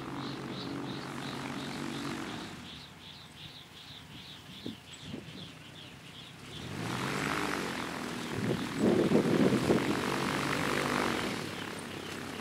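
Small gyroplane's engine and pusher propeller running as it taxis with its rotor turning; the engine drops back for a few seconds, then is throttled up about seven seconds in and grows louder and rougher.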